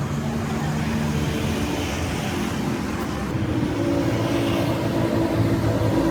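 Steady mechanical drone of a running engine, with low tones that shift slightly about halfway through.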